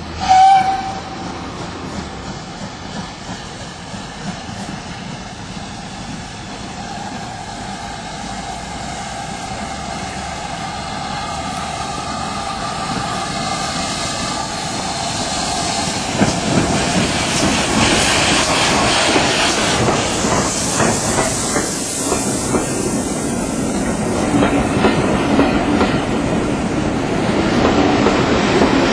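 Steam locomotive and its coaches: a short whistle blast about half a second in, then the sound of the train grows steadily louder as it draws near, and from about halfway through the coaches pass close by with the clatter of wheels over rail joints.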